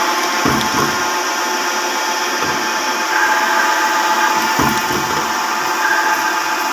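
Manual metal lathe running steadily during a threading job: a constant machine hum with several steady tones, with a few short low thumps.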